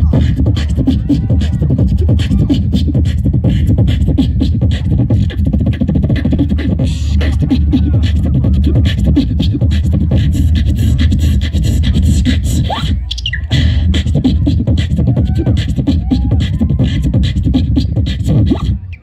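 Live beatboxing amplified through a handheld microphone: a fast, continuous beat of rapid clicks and snare-like hits over a deep bass hum, with short pitched vocal sweeps on top. The beat breaks off briefly just before 13 s with a rising glide, then carries on.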